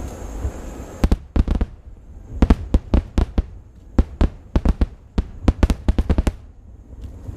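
Aerial fireworks bursting: sharp bangs of exploding shells in quick clusters of several reports each, with short lulls between volleys.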